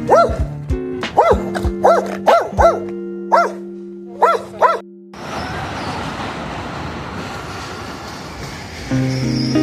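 A small dog barks about eight times in quick, short barks over background music. After about five seconds the music and barking stop, leaving a steady rushing noise. The music comes back near the end.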